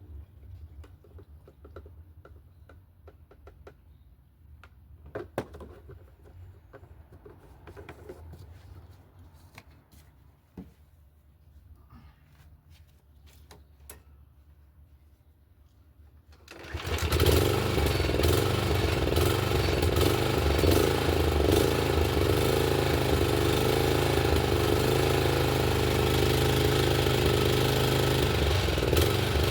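Etesia Pro 46 lawn mower's Kawasaki engine starting suddenly just over halfway through and then running steadily. Before it starts there are only a few faint clicks and knocks.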